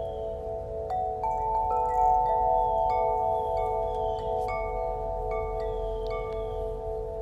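Chimes ringing: struck, bell-like notes sound every half second to a second, from about a second in, over a steady chord of held tones, with faint short chirps gliding high above.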